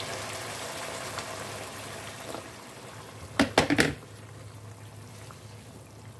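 Water poured in a thin stream into a pan of simmering spiced sauce, a steady splashing that fades away over the first three seconds. About three and a half seconds in comes a quick cluster of sharp knocks, the loudest sound.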